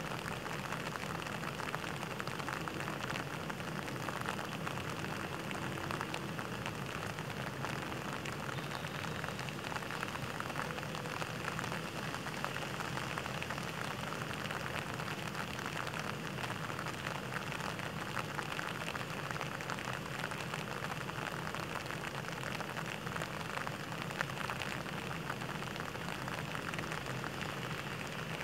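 Rain falling on a pond's surface: a steady, dense patter of many small drops hitting the water.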